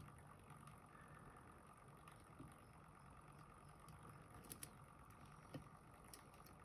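Near silence with a faint steady room hum and a few soft clicks of a hook pick and tension bar working the pins of a small pin tumbler lock: two close together about four and a half seconds in, and one more a second later.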